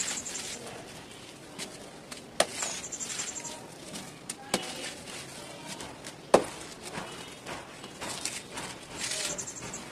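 Dry red dirt lumps crumbled by hand: gritty crunching and the sifting of powder falling through the fingers, with three sharp snaps as clumps break, the loudest about six seconds in.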